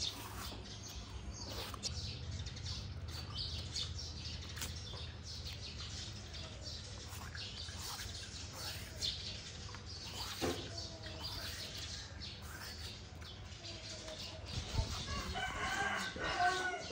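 A hand peeler scraping the skin off a ridged luffa gourd in repeated short strokes, and a rooster crowing near the end.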